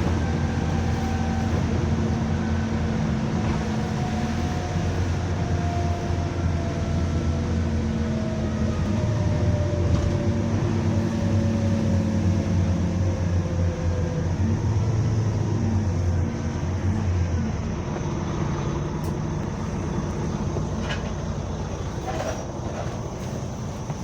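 Double-decker bus running, with a steady low engine hum and a fainter whine that slowly falls in pitch over the first several seconds. The low hum drops away about 17 seconds in, and the sound then fades gradually.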